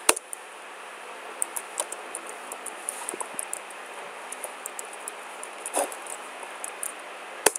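Computer keyboard keys clicking in light, irregular taps as a command is typed, over a steady background hiss, with a sharper click at the start and another near the end.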